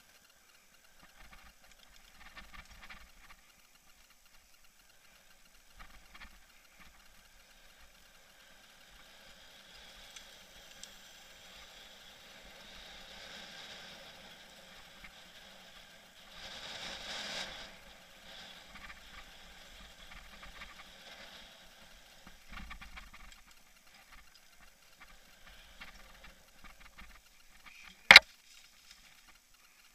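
Mountain bike riding a dirt singletrack, heard through a mounted action camera: faint irregular rattling of the camera and bike over bumps, with tyre and wind rush that swells about halfway through. Near the end comes one sharp, loud knock on or against the camera.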